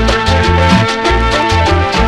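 Cumbia dance music playing loud and steady: a regular percussion beat over a pulsing bass line, with sustained melody notes on top.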